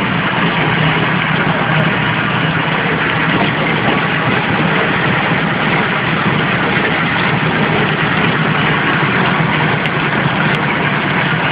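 Horizontal flow-wrapping machine for bread running, a steady mechanical hum with a low drone and no break.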